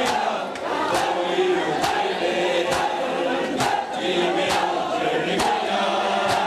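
A group of men chanting a noha together, marked by matam: many hands slapping bare chests in unison about once a second, each strike a sharp slap over the chanting.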